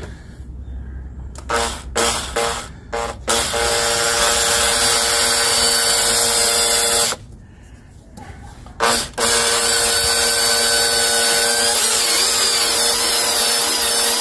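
Makita 18V cordless drill with a stepped drill bit boring into the sheet-metal inner wheel arch. A few short trigger blips come first, then a steady motor whine for about four seconds. After a brief stop and another blip, it runs steadily again.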